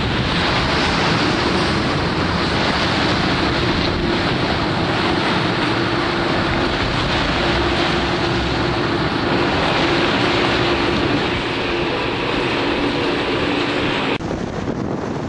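Wind rushing over the microphone on a moving boat, with water noise and a steady engine hum underneath; the rush cuts back suddenly near the end.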